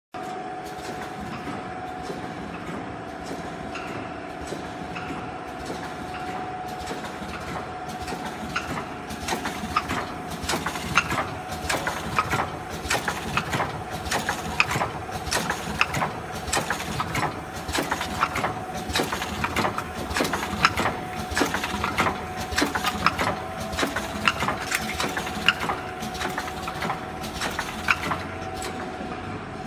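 HSP-1N Lavazza Blue capsule filling and sealing machine running: a steady whine at one pitch throughout, joined from about a third of the way in by rapid, irregular mechanical clicking and clacking several times a second.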